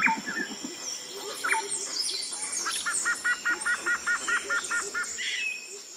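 Woodland birdsong, with several birds chirping and whistling. About three seconds in, one bird repeats a quick note about five times a second for two seconds.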